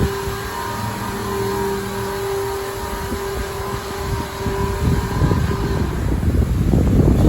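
PDQ LaserWash 4000 touchless car wash running: a steady motor whine that stops about six seconds in, over a constant low rumble that grows louder near the end. The whine comes from the motor the owner calls bad.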